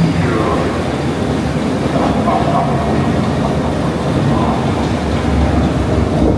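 Dark-ride car rolling along its track, a steady low rumble with some clatter.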